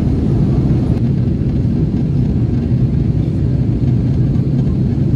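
Airbus A330-300 airliner heard from inside the cabin during descent: a steady low rush of engines and airflow, with a low hum running under it.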